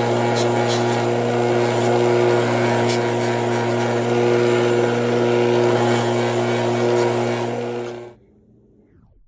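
Bench grinder running with a steady motor hum and the hiss of a small workpiece held against its wheel; the sound cuts off sharply about eight seconds in.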